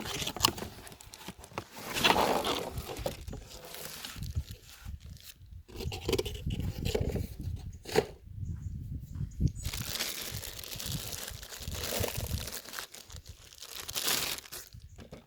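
Unboxing packaging being handled: irregular rustling and crinkling of plastic wrapping and cardboard, with a few sharp knocks as the dehumidifier is lifted out.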